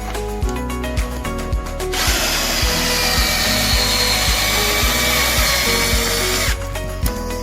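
An electric drill runs for about four and a half seconds with a high whine, starting about two seconds in and stopping suddenly, over background music with a steady beat.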